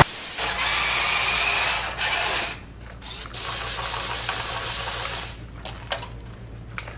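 Mechanical whirring and grinding from a machine's motor, in two stretches of about two seconds each, over a steady low hum.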